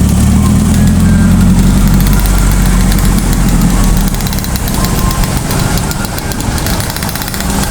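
A bus's diesel engine running close by with a loud, steady low rumble that eases a little about four seconds in.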